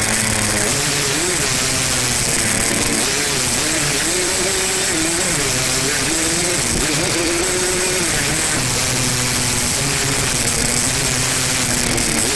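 Yamaha YZ two-stroke dirt bike engine running while ridden, its pitch rising and falling over and over with the throttle.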